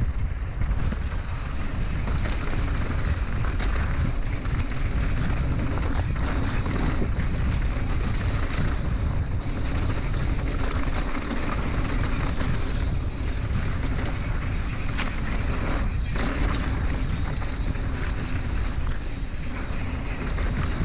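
Mountain bike rolling fast down a dirt singletrack, with a steady wind rumble on the action-camera microphone and the tyres running over dirt. Now and then the bike knocks and rattles over bumps.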